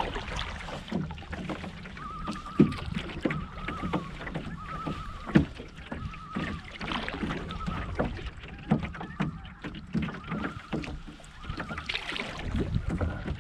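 Common loons giving repeated short, quavering tremolo calls, the alarm call of disturbed loons, which she takes to be upset by an eagle overhead. Under the calls are the splash and knock of canoe paddle strokes and wind rumbling on the microphone.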